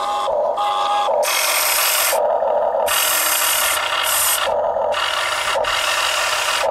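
Huina RC excavator's electric motors and gearboxes whirring and grinding in a series of short start-stop bursts as the boom and bucket move and tip a load of mud into the dump truck.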